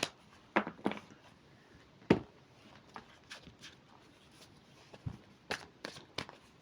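Cards being handled and laid down on a table: a scattered series of short taps and clicks, the loudest about two seconds in.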